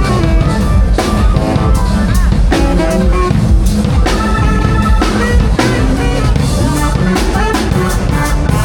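Loud music with a drum kit and guitar.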